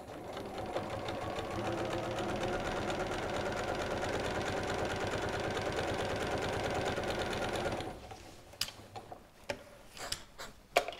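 Janome Memory Craft 6600 computerized sewing machine running steadily at a quick, even pace as it stitches a seam through fabric, stopping abruptly about eight seconds in. A few sharp clicks and taps follow near the end.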